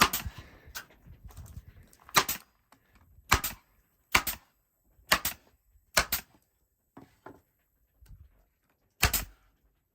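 A staple gun firing six times, roughly once a second, each shot a sharp double snap, with a short pause before the last one.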